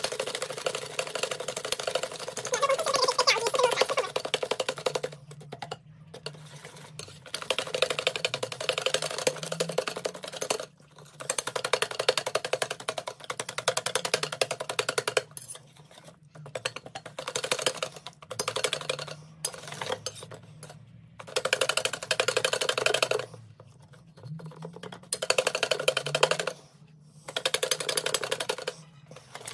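Wire balloon whisk beating rapidly against a stainless steel bowl while whipping eggs and brown sugar, a fast, dense clatter that is sped up and broken by several short pauses.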